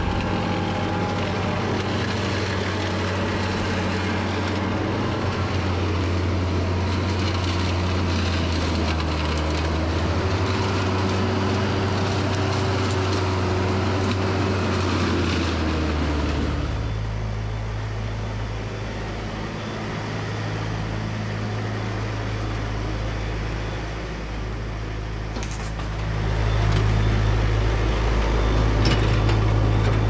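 Green Climber LV500 remote-controlled tracked flail mower, an engine of about 50 horsepower, running steadily with its hammer flail cutting through gorse. The engine note changes abruptly about halfway through and grows louder near the end.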